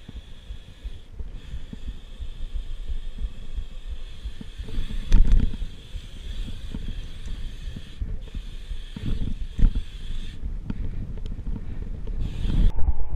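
BMX bike rolling over pavement, heard through an action camera: wind buffeting the microphone and a rumble from the tyres, with a few heavier jolts, the loudest about five seconds in and near the end.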